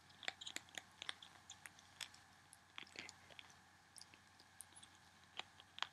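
Ferret licking and chewing vitamin supplement paste from a tube: faint, small wet clicks and smacks, thick in the first second or so, then sparser.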